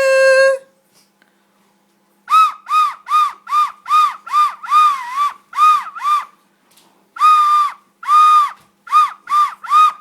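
A young child vocalising: one held call at the start, then a quick run of about a dozen short, high-pitched calls, each rising and falling in pitch, with a brief pause before the last four.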